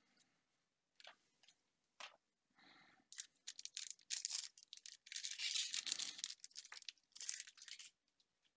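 Foil booster pack wrapper being torn open and crinkled, a few light ticks followed by a run of short, irregular rustling bursts, faint overall.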